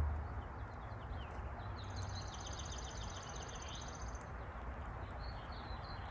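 Faint outdoor ambience with a bird's rapid high trill lasting about two seconds, starting about two seconds in.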